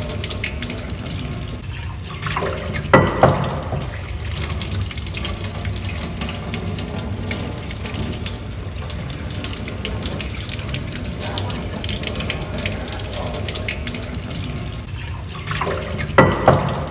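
Tap water running steadily into a sink, with a brief louder double clatter about three seconds in and again near the end.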